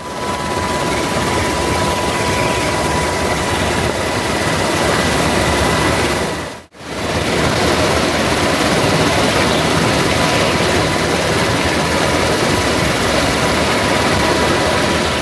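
Loud, steady aircraft engine noise mixed with rushing air, cut off for an instant about seven seconds in.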